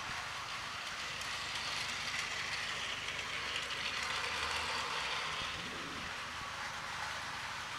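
Plarail 200 Series Shinkansen toy train running on plastic track: a steady high whirr from its battery-powered motor and gears, swelling a little in the middle and easing off near the end.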